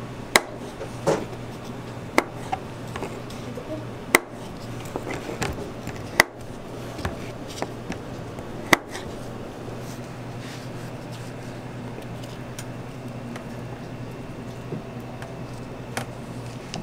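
A knife cutting soft white cubes on a plastic cutting board: sharp knocks of the blade meeting the board at irregular intervals, most of them in the first nine seconds and one more near the end. A steady low hum runs underneath.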